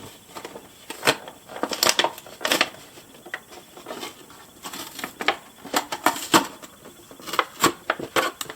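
Cardboard and plastic toy packaging being handled and opened by hand: irregular clicks, taps and crinkles as the box and its flaps are worked open.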